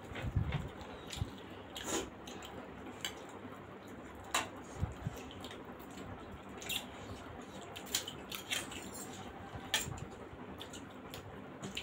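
Close-up eating sounds of steamed momos being chewed: scattered wet smacks and short sharp clicks, with small soft thumps, a second or so apart.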